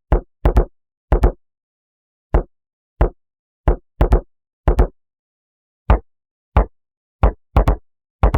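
A single short electronic drum hit with a deep thump and a quick decay, sampled from one piece of audio. It is played alone about eighteen times at uneven intervals, some hits in quick pairs, with silence between.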